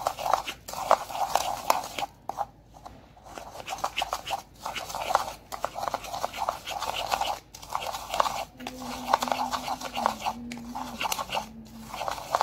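Metal teaspoon rapidly scraping and beating around a plastic bowl, whipping instant coffee and sugar with a little water into a thick paste. Quick, even, rhythmic scraping strokes with short pauses between bouts.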